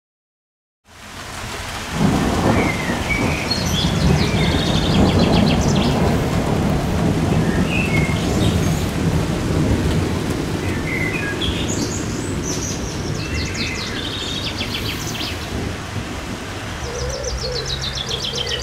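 After a second of silence, steady rain comes in with thunder rolling low for several seconds, then easing. Birds sing in trills and chirps several times through the rain.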